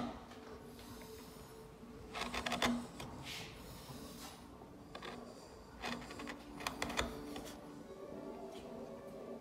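Hand carving tool cutting into a wooden panel: a few short clusters of clicking, scraping cuts a few seconds apart, the loudest about two seconds in and again around seven seconds.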